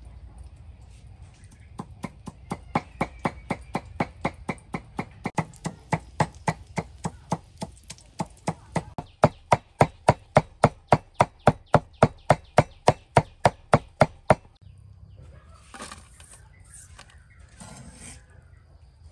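A knife mincing red chilies on a thick wooden chopping block: a fast, even run of knocks about four a second, growing louder about halfway through and stopping about three quarters of the way in. A few scattered knocks follow.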